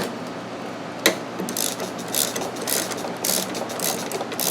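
A socket ratchet clicking in short repeated strokes, loosening the bolt on a Saab 9000's AC expansion valve block, after a single sharp click about a second in.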